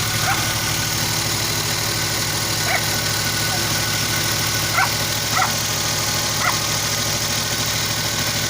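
Suzuki K6A three-cylinder engine idling with a misfire, which the owner puts down to a spark plug. A dog barks about five times in the background.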